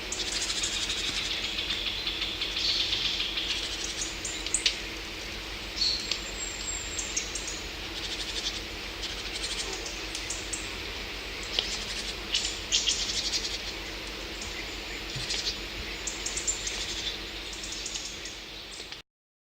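Songbirds chirping and calling in quick, short high notes over a steady outdoor background; the sound cuts off abruptly near the end.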